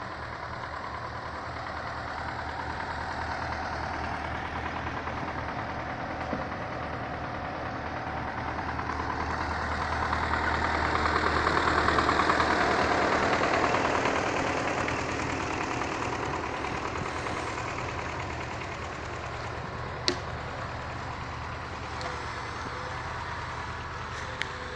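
KAMAZ timber truck's diesel engine running steadily, swelling to a louder, higher-revving sound about ten seconds in and easing back a few seconds later, as it would when driving the hydraulic loader crane. A single sharp click comes near the end.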